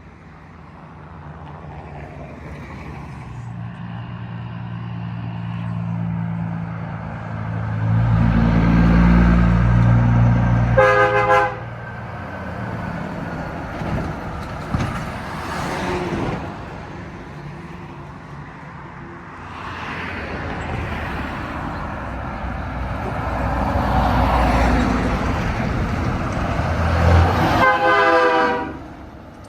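Two semi trucks drive past one after the other, each engine's rumble building as it approaches. Each gives one short blast of its air horn just as it passes: the first about a third of the way in, the second near the end.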